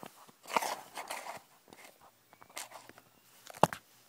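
Handling noise as the camera is picked up, moved and set down: rustling and a few light clicks and knocks, the sharpest knock about three and a half seconds in.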